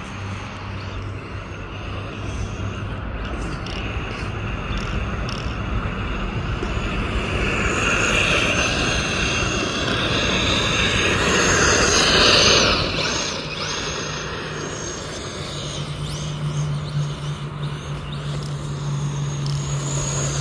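RC car driving and drifting on sandy dirt: a motor whine that rises and falls over a steady hiss of tyres spraying grit. It is loudest about twelve seconds in, then settles.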